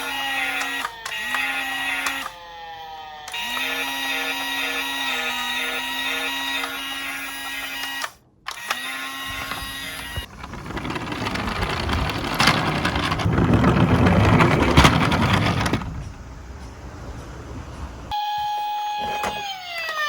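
Electronic sound effects from toy police cars: repeated falling tones over a steady hum for about ten seconds. Then a rattling rumble of small die-cast cars rolling on a plastic slope for about six seconds, and near the end an electronic siren wailing up and down.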